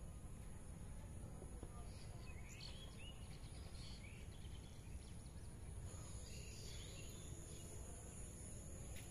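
Faint outdoor ambience: a steady high-pitched insect trill with a few short bird chirps about a third of the way in and again around two-thirds, over a low background rumble.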